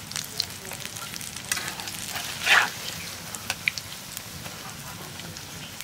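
Radish-flower pakoras deep-frying in hot oil in a metal karahi, sizzling steadily, with a metal spatula clicking and scraping against the pan as they are turned and lifted out. One louder scrape comes about halfway through.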